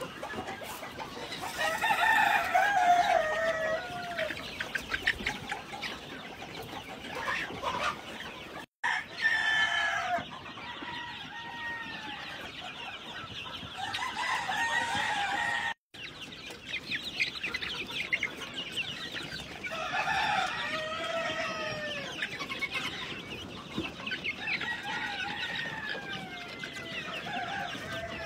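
A flock of young Fayoumi chickens clucking and calling continuously, with louder drawn-out falling calls several times. The sound drops out briefly twice.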